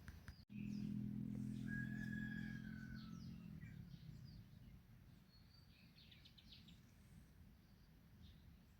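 Small birds chirping in the background, with a low steady drone for the first few seconds that fades away.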